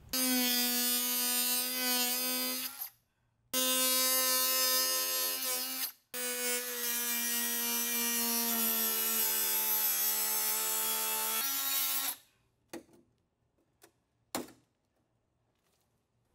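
Small handheld electric power tool cutting an exhaust opening in a rear diffuser. It makes a steady high whine in three runs, about three, two and a half and six seconds long, each starting and stopping abruptly, and dips slightly in pitch partway through the last. A few light clicks follow.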